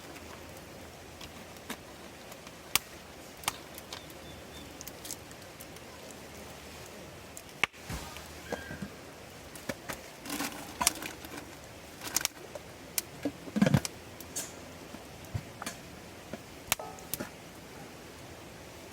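Wood campfire crackling: scattered sharp pops and snaps over a steady low hiss, coming thicker and louder past the middle, with one duller knock among them.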